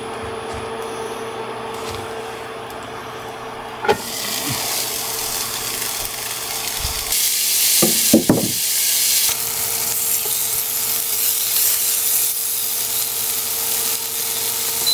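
Peppers and onions with butter sizzling in a skillet on a portable induction cooktop. The sizzle starts after a knock about four seconds in and grows louder, over a steady hum.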